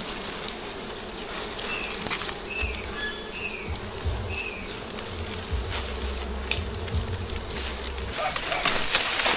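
A swarm of wild honeybees buzzing steadily. A few short, high, falling chirps come between about two and four seconds in, and a low rumble runs through the middle.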